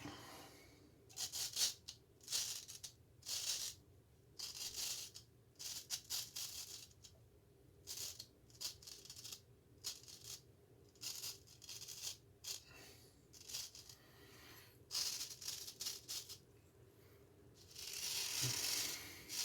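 Straight razor scraping through lathered stubble in short strokes, roughly one a second, with a longer scrape near the end.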